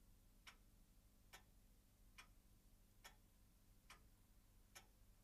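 Faint, steady ticking of a clock, a little more than one tick a second, in an otherwise near-silent room.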